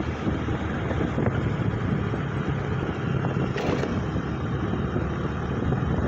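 Wind buffeting the microphone of a motorcycle riding at speed, over the steady noise of the bike and the road. A brief hiss about three and a half seconds in.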